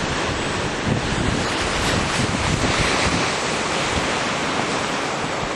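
Wind buffeting the microphone: a steady rushing noise with gusty low rumbles.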